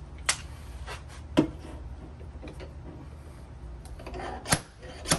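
Several sharp metal knocks, the loudest about a second and a half in, from a dent puller working a pin welded into a creased car door panel, over a low steady hum.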